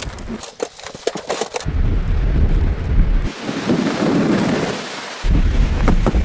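Strong wind: a rapid series of sharp cracks, like fabric snapping taut in gusts, then low rumbling wind buffeting the microphone that starts and stops abruptly.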